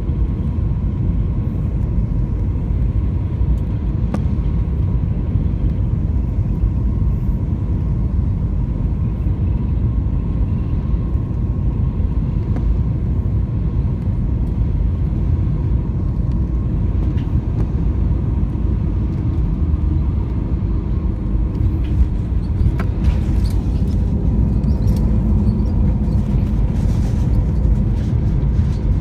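Cabin noise of an Airbus A320-200 on final approach: a steady, loud rumble of engines and airflow with a faint steady whine. Near the end it touches down, and knocks and rattles come in as the rumble thickens during the rollout with the spoilers up.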